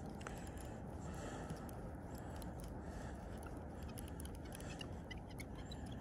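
Faint steady low outdoor background rush, with a few short, faint high chirps in the second half.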